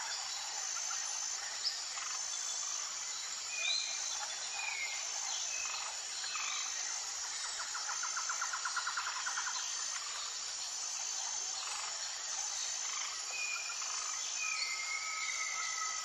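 Outdoor nature ambience: a steady insect chorus with a high note repeating about once a second. Over it, birds give short whistled calls, with a rapid trill about eight seconds in.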